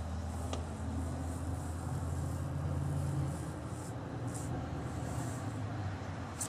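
Steady low background rumble, with a few soft faint swishes in the second half as a silk scarf is pulled out and waved.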